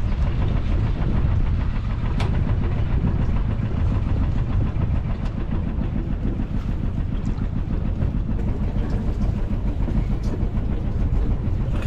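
Small sailboat's engine running steadily with a low rumble, a few faint clicks on top.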